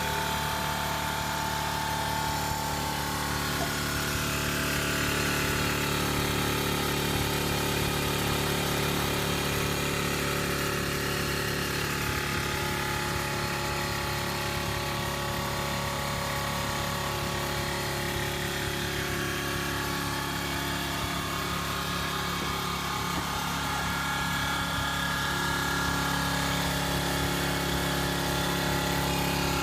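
Makita AC4000 air compressor running steadily.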